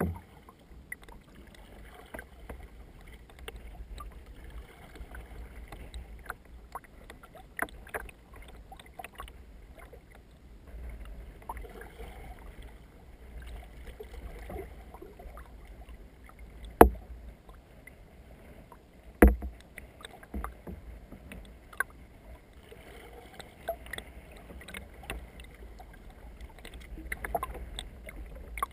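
Canoe paddle strokes, the blade splashing and dripping in the river water. Two sharp knocks stand out past the middle, the loudest sounds.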